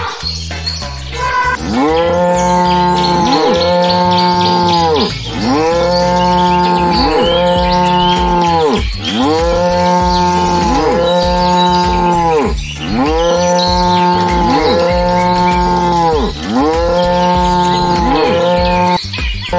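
A cow mooing, the same moo repeated over and over in pairs, about ten times in all; each moo rises and then falls in pitch.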